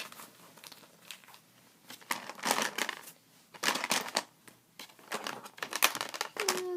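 Plastic rustling and crinkling in several short bursts as small plastic toy tool parts are handled.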